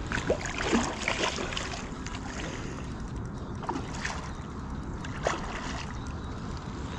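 Water lapping and wind around a small boat, with a few light knocks and clicks scattered through it.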